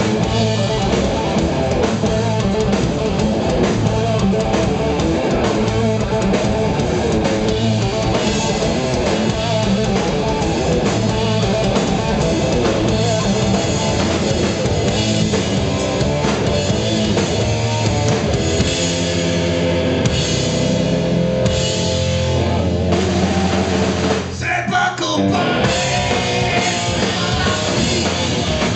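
Live hard rock band playing loud: distorted electric guitars, bass and a drum kit. From about 19 s the drums drop back and the guitars hold ringing chords. The full band kicks back in near 25 s, just after a brief gap.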